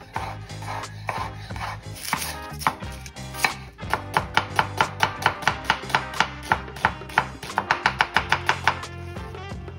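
Chef's knife chopping on a wooden cutting board, first through sliced jalapeño with softer, uneven strikes, then slicing an onion with sharp, regular strikes at about four a second, quickening briefly near the end.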